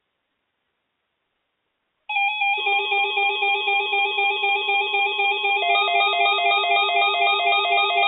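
Music starts suddenly about two seconds in, after silence: a quick repeating melodic figure over a held lower note.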